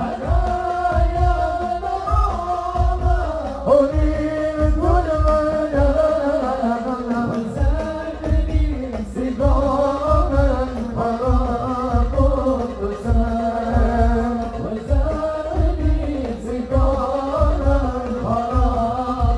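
Sholawat devotional song: a male lead voice sings a long, ornamented Arabic melody over a PA, accompanied by hadroh frame drums beating a fast, steady rhythm.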